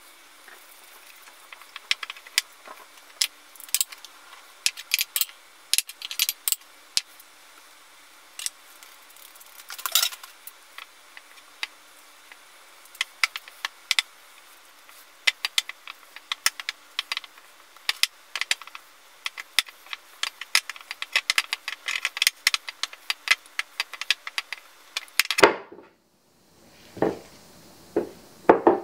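Silicone spatula stirring stiff cookie dough in a glass bowl, with many quick, irregular clicks and taps of the spatula against the glass. Near the end the sound cuts out briefly, then gives way to softer, duller sounds of the dough being handled.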